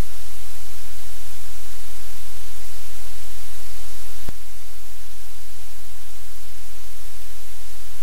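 Steady, loud static-like hiss with a low hum beneath it. A single click a little past four seconds in, after which the hiss is slightly quieter.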